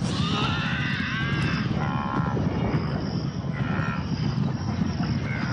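Wildebeest herd calling, several short nasal grunting calls over a low steady rumble.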